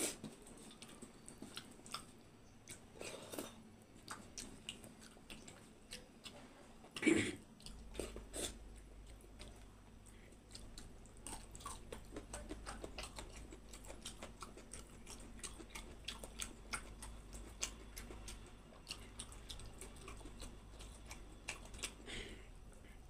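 Close-up mouth sounds of eating soft khichdi by hand: chewing with many small wet clicks, and fingers squishing the rice. A louder burst about seven seconds in, and a low steady hum comes in just after it.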